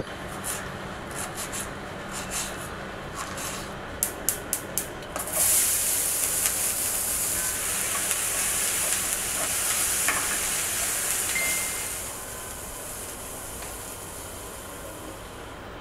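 Okra and onions sizzling in a frying pan while a wooden spatula stirs them, a steady hiss that starts about five seconds in and eases off near the end. Before it, a few light clicks and taps.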